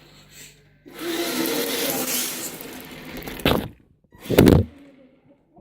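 Small electric RC car motor whirring for a couple of seconds, then two loud thuds about a second apart.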